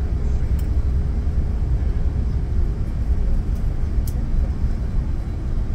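Steady low rumble of cabin noise inside an Airbus A380, with a faint steady hum that fades out about halfway through and a couple of faint ticks.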